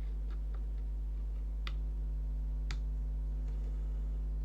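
A USB charging cable and connector being handled and plugged in: a few faint ticks, then two sharp plastic clicks about a second apart. A steady low electrical hum runs underneath.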